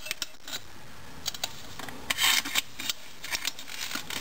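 Metal prying tool scraping and clicking against the center support snap ring inside a 4L80E automatic transmission case, working the stubborn ring out of its groove. Light scattered clicks, with a louder scrape about halfway through.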